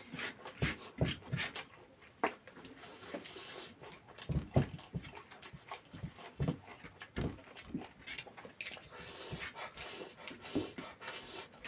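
Close-miked wet chewing and lip-smacking of someone eating chicken curry with rice, a run of irregular short smacks, the loudest about four and a half seconds in. A stretch of breathy noise comes between about eight and ten seconds.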